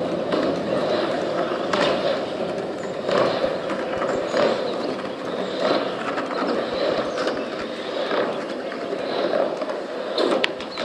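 Skateboard wheels rolling steadily over rough pavement, with a light click about every second and a half.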